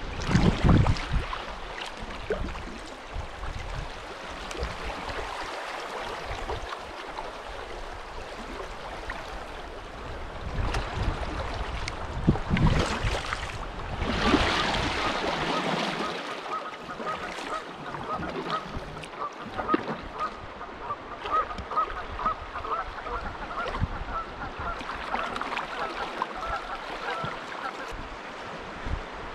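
Kayak paddle strokes dipping and splashing in slow river water. Through the second half, a bird calls over and over in a quick, even series.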